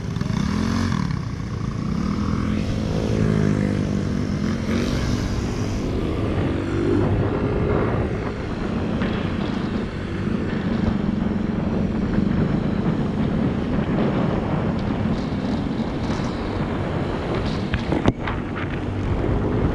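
Motorcycle engine running on the move, its pitch rising and falling with the throttle over a steady rushing noise. A single short knock comes near the end.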